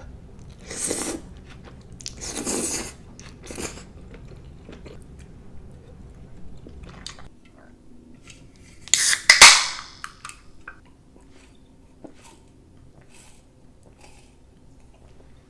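Close-miked eating sounds: chewing and biting the bean curd from a spicy noodle stew, in short bursts with quieter mouth clicks between. One loud, sharp burst comes a little past halfway.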